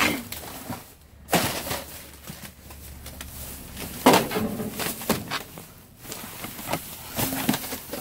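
Plastic bags and cardboard in a dumpster rustling and crinkling as they are rummaged with a grabber pole and gloved hands, in a few louder spells.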